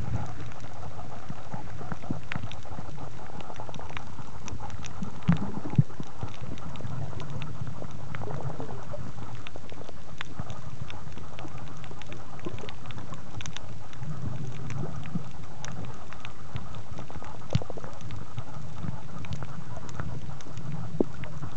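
Muffled underwater noise picked up by a camera inside a soft plastic waterproof case: a steady wash with a low rumble that swells and fades every few seconds, and scattered faint clicks.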